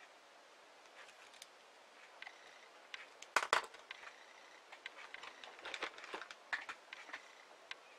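Small 4 mm beads clicking against each other and the needle as thread is passed through them in beadwork: scattered light ticks, with a louder cluster of clicks about three and a half seconds in.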